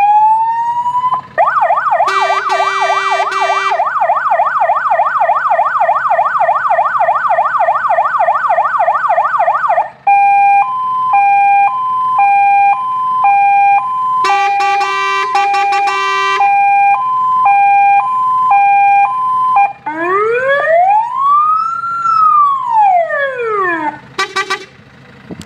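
Electronic siren of a Star 12-157 fire engine cycling through its tones. It starts with a fast yelp sweeping up and down about three times a second, then switches to a two-tone hi-lo alternating about every half second, then gives one slow wail rising and falling. A low, rasping horn sounds twice over the siren, and there are short horn blips near the end.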